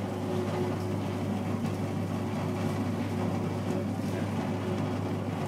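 Small shear-agglomeration detergent powder machine running steadily, a constant motor hum as it mixes the powder in a second agglomeration pass.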